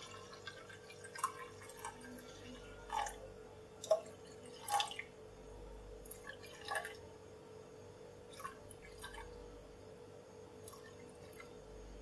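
Water poured in a thin stream from a jug into a stainless steel saucepan of orange juice, trickling faintly with scattered drips and small splashes, the clearest about four and five seconds in.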